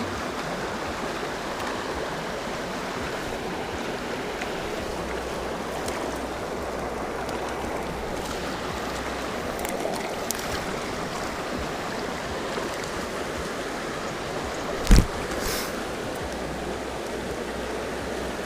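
Mountain stream running steadily, an even rush of water. A single sharp knock stands out about three-quarters of the way through.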